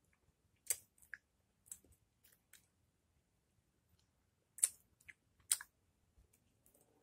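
Wet mouth clicks and smacks from biting and sucking the juice out of a sour lemon slice: about eight short, scattered sharp ones, the loudest two around two-thirds of the way through.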